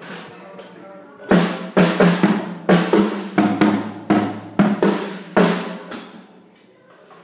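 Drum kit played in a short fill of about a dozen stick strikes over roughly four seconds, starting about a second in. A lower-pitched drum rings out in the middle of the fill.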